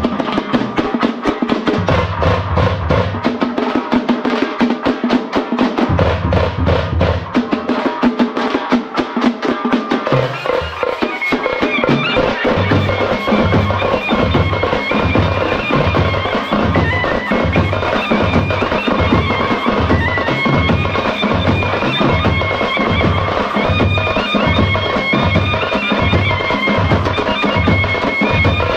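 Traditional festival drumming: rapid, dense drum strokes. About twelve seconds in, a high wind-instrument melody joins over a steady, slower drum beat.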